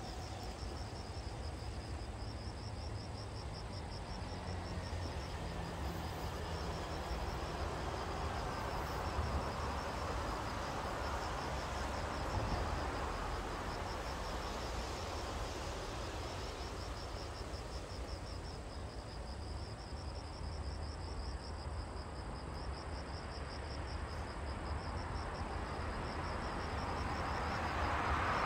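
Insects trilling in a steady train of rapid, high-pitched pulses over a continuous rushing background noise with a low rumble. The rushing swells about ten seconds in and again near the end.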